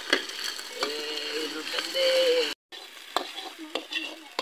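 Metal ladle stirring and clinking against a steel wok of frying food, with a steady sizzle underneath and sharp clicks of the ladle on the pan. For about two seconds in the middle, a held, voice-like tone sounds over it.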